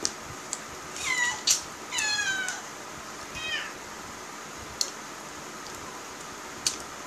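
A cat meowing three times in quick succession, the later meows falling in pitch, with a few sharp clicks scattered through.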